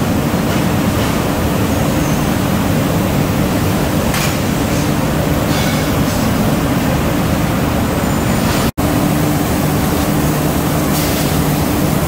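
Steady, loud drone of coil spring factory machinery, a constant low rumble with a hiss over it, which drops out for an instant about three-quarters of the way through.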